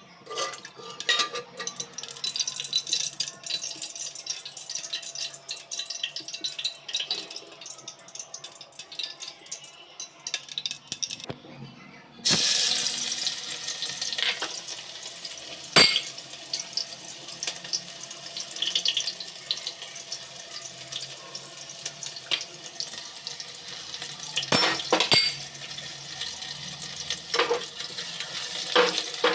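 Water running and splashing in a kitchen sink, with small clatters of things handled in the water. About twelve seconds in, a louder, steady hiss starts suddenly, like a tap opened full, with a few sharp knocks later on.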